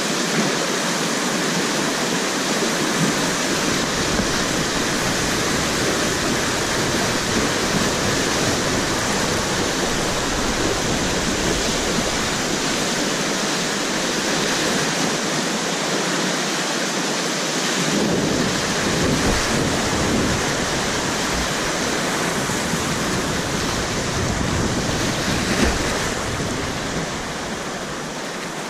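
Whitewater rapids rushing loudly and steadily around a kayak, with a deep rumble under the hiss for most of the run; the rush eases slightly near the end as the water calms.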